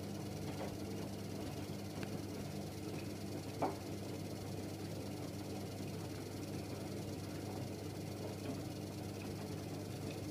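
AEG Öko-Lavamat 8650 front-loading washing machine running through a wash: a steady low hum with scattered soft knocks, one louder about three and a half seconds in.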